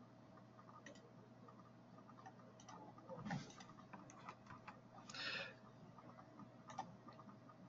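Near silence broken by a few faint, scattered computer mouse clicks.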